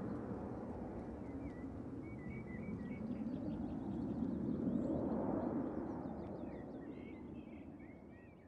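Small birds chirping over a steady low rumble that swells about halfway through and then fades out near the end.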